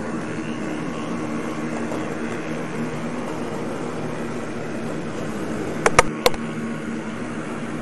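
Steady hiss and hum of room noise picked up by a home camcorder's microphone, with three sharp clicks close together about six seconds in.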